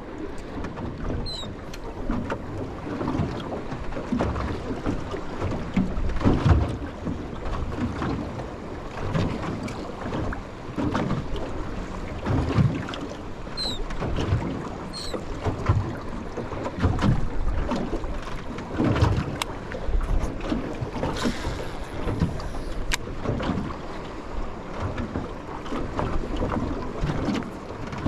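Wind buffeting the microphone and water slapping against the hull of a small aluminium tinny, in irregular gusts and swells.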